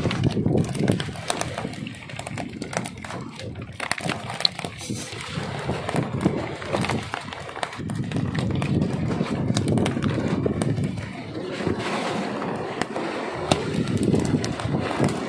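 Freshly caught small tuna flapping on a wet wooden deck: irregular slaps and taps of tails and bodies on the boards, over a low rumble.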